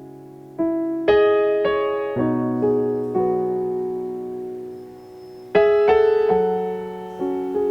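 Background piano music: slow sustained chords struck every second or so and left to ring and fade.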